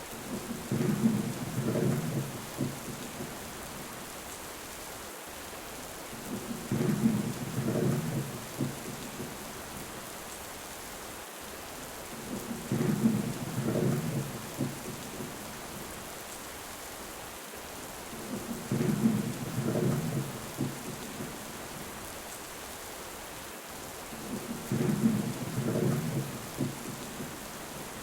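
Steady heavy rain with a deep thunder rumble that comes back five times at even six-second intervals. Each rumble lasts about three seconds and sounds the same every time.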